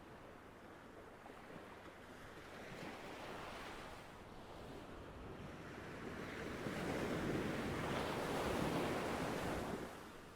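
Ocean waves washing onto shore: a low steady surf, with a smaller swell about three seconds in and a louder wave surging from past the middle and easing off near the end.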